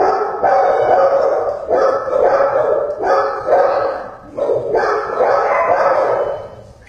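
Dogs in shelter kennels barking loudly in repeated overlapping bursts, dying down near the end.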